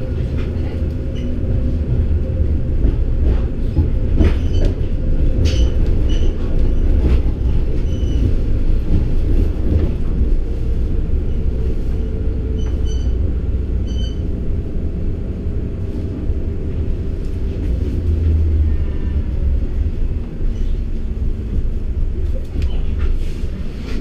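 Tatra K2 tram running, heard from inside the passenger car: a steady low rumble with occasional clicks and rattles.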